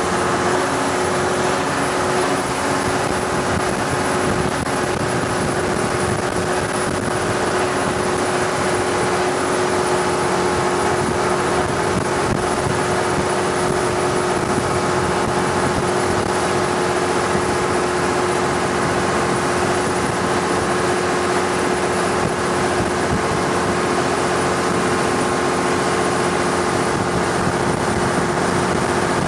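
Thai longtail boat's engine running steadily under way, a constant unchanging drone.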